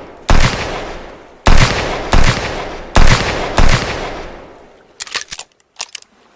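Handmade revolver gunshot sound effect: five shots, each followed by a long fading echo, then a few quick sharp clicks near the end.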